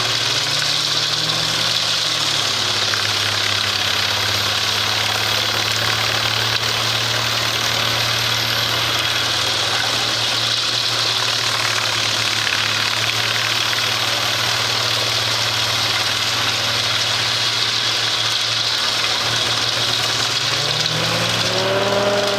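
Engine of a heavy wood-chipping or tree-cutting machine running steadily, with a brief rise and fall in pitch near the end.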